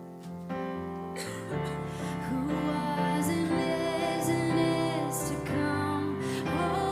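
Live worship music: sustained chords that change every second or so, growing louder over the first few seconds.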